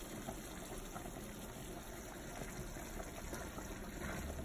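Faint steady hiss and bubbling of food cooking on a gas stove, from ground beef in tomato sauce in a frying pan. Near the end a spatula starts stirring the sauce.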